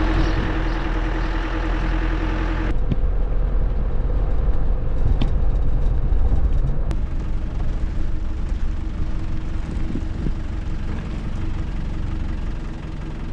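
Truck engine running steadily as the truck drives slowly, a constant low drone. About three seconds in, the sound changes abruptly and turns duller, with less hiss up high.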